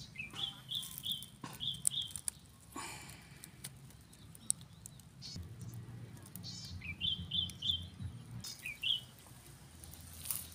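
A bird chirping: short, quick high chirps in runs of about three a second, one bout in the first two seconds and another from about seven seconds in. A few sharp clicks fall in between, the loudest about four and a half seconds in.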